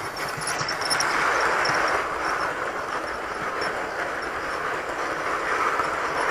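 OO gauge model of a streamlined LMS Princess Coronation Class locomotive and its coaches running past close by: the steady rumble of model wheels on the track, swelling as the locomotive passes about a second in, then running on as the coaches go by.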